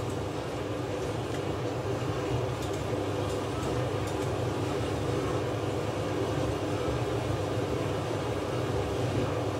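Daishi 300 Tamahagane straight razor being honed in small circles on a wet Hatahoshi whetstone with slurry: a steady, continuous scraping.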